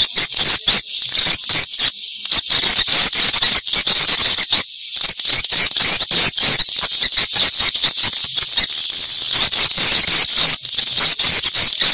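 Dense swiftlet twittering: a constant mass of high chirps and rapid clicks.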